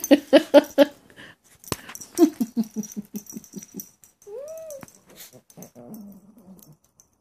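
Pomchi (Pomeranian–Chihuahua) puppy playing rough: two runs of quick short yaps, a short rising-then-falling yelping whine about four seconds in, and a low growl near the end.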